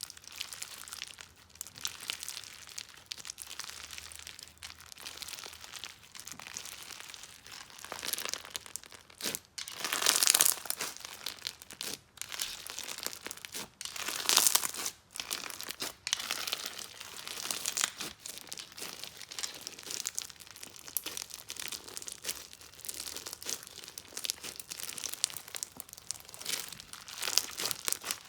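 Slime mixed with slime supplies being squeezed and pressed by hand, giving a continuous fine crackle and crinkle, with louder crackling bursts about ten and fourteen seconds in and near the end.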